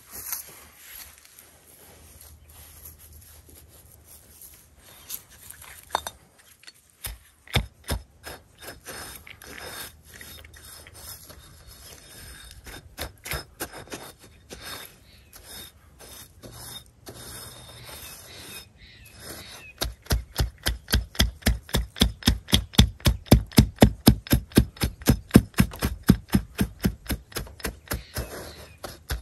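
A brick scraping and knocking on crushed gravel, then, about two-thirds of the way in, tamped down on it in quick, even strokes, about four a second, packing and levelling the gravel bed.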